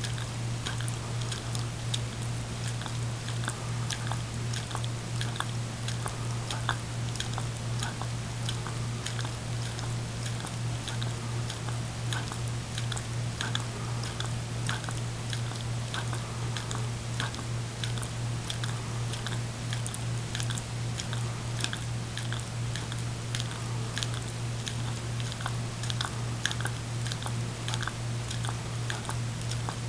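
A greyhound licking dog ice cream out of a small cup: a quick, uneven run of wet licking and smacking clicks. A steady low hum sits underneath.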